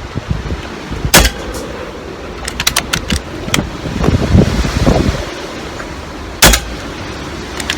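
Two sharp air rifle shots about five seconds apart, with a few lighter clicks between them and wind rumbling on the microphone.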